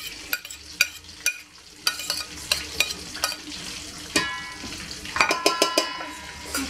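Metal spoon scraping and clicking against a plate as food is pushed off into a stainless steel mixing bowl, with many quick clicks. About four seconds in and again a second later, sharper spoon taps set off a short metallic ringing.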